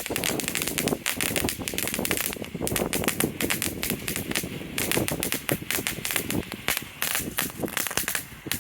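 Consumer firework fountains burning, a dense, irregular run of crackling pops over a hissing spray.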